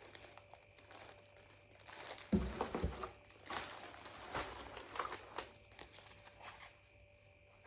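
Wrapping crinkling and rustling in irregular handfuls as a gift is opened by hand, with a knock about two seconds in.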